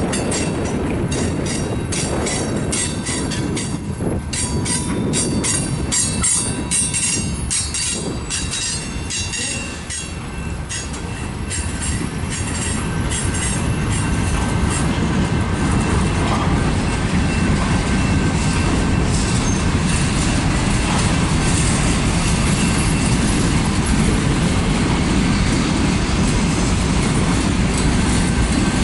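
Freight cars of a mixed freight train rolling past at close range: steel wheels rumbling on the rails, with quick clicks over the rail joints in the first half. About halfway in this turns into a steadier, slightly louder rumble.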